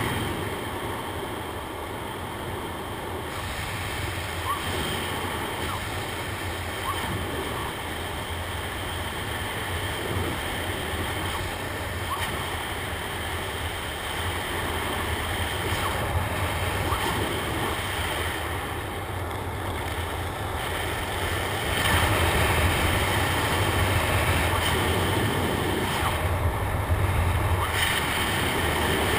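Wind rushing over a skydiver's helmet-mounted camera microphone during the descent, a steady roar with a deep rumble that grows louder about twenty-two seconds in.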